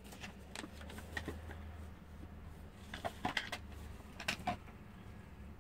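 Scattered soft clicks and rustles of plush stuffed toys being handled and rummaged through, with a few clusters of quick clicks, over a faint steady low hum.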